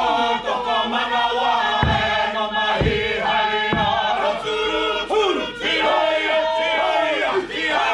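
Group of Māori performers chanting together in loud unison, with three heavy thumps of stamping feet about a second apart near the middle.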